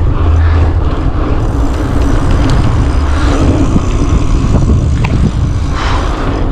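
Wind buffeting a chest-mounted action camera's microphone while riding a bicycle along an asphalt road: a loud, uneven low rumble with a single sharp click about five seconds in.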